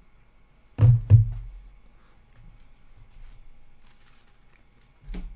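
Two dull thumps about a third of a second apart, followed by faint light handling noises and another thump near the end.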